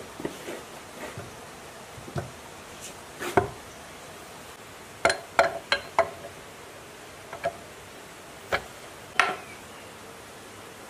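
Scattered sharp metal clinks and knocks, about ten in all, some briefly ringing, as steel timing gears and parts are handled and fitted onto a small diesel engine's crankcase. The loudest knock comes a little over three seconds in.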